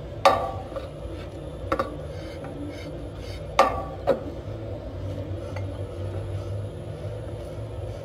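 Metal clicks and clinks as a variable-pitch motor sheave is turned by hand to set the V-belt's riding height in the groove: four sharp ringing clicks, the loudest near the start and a little past halfway. A steady low hum runs underneath.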